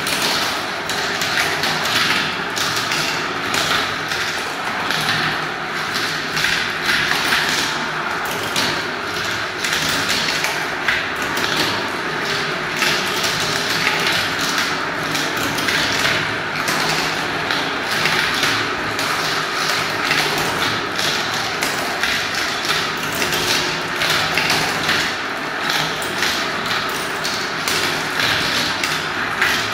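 Many small balls rolling and spinning round the clear plastic funnel bowls of a marble run and dropping through its plastic tubes, a continuous dense clatter of small clicks and taps.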